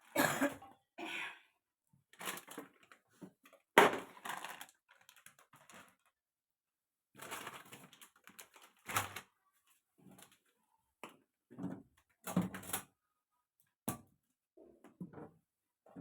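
Brief clatters and knocks of food containers and packets being handled and set on fridge shelves, in a dozen or so short bursts. The sharpest knock comes about four seconds in.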